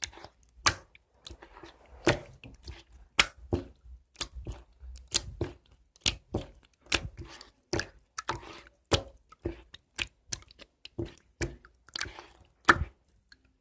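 Homemade slime being kneaded and squeezed by hand: irregular sticky squelches and sharp wet pops, about two or three a second.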